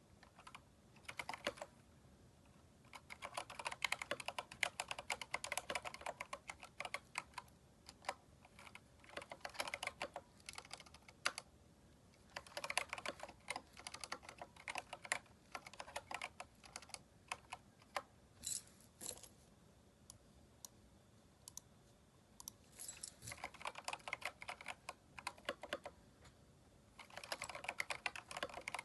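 Typing on a Keychron K4 mechanical keyboard fitted with aftermarket keycaps: rapid runs of key clicks broken by short pauses, with a few single keystrokes between the runs.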